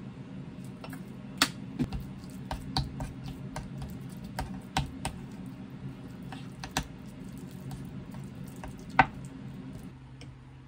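A spoon clicking and scraping against a small ceramic bowl as a thick butter, crushed garlic and honey mix is stirred. The clicks come irregularly, with the loudest about a second and a half in and again about nine seconds in.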